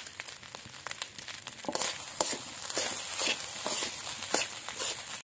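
Rice sizzling and crackling as it fries in a hot steel wok, with the short scrapes and taps of a spatula stirring it. The sound cuts off suddenly near the end.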